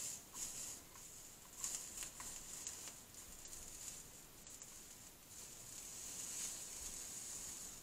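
Molten solder and flux sizzling faintly under a soldering iron as a bead is run along the copper-foiled seams of a stained glass panel, with small crackles and pops. It is the flux boiling, which on this second side is trapped under the first side's solder and bubbles back up.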